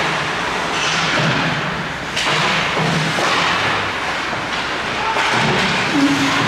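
Ice hockey rink sounds: thuds of a puck or players against the boards among the hiss of skate blades on ice, with a couple of sharp knocks about two and five seconds in.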